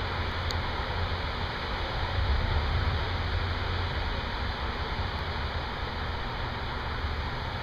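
Steady hiss of heavy thunderstorm rain, with a low rumble that swells briefly about two seconds in.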